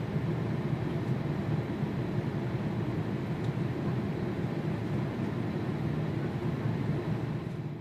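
Jet airliner engines giving a steady low rumble that drops away at the very end.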